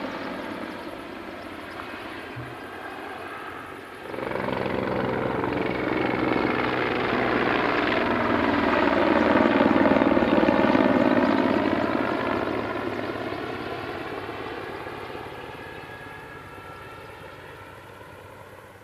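Mi-24P attack helicopter flying past: the rotor and engine sound jumps louder about four seconds in, peaks around ten seconds in, then fades steadily as the helicopter moves away.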